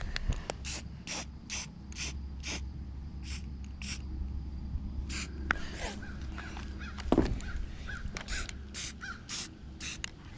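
Aerosol spray-paint can spraying green paint in short, quick bursts, two or three hisses a second in an uneven rhythm.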